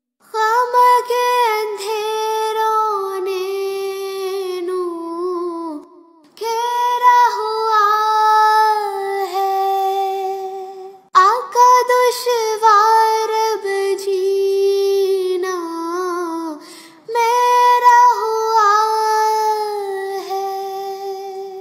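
A child's high voice singing an Urdu naat in four long drawn-out phrases, each held note sliding slowly downward, with brief breaks between them. No instruments are heard alongside it.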